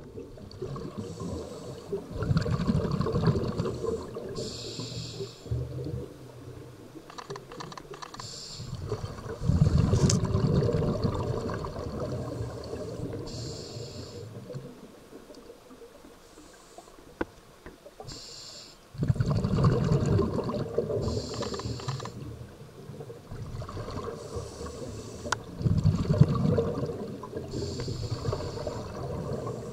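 Scuba diver breathing through a regulator underwater: a short hiss on each inhalation, then a few seconds of low bubbling as the breath is let out, repeating every several seconds.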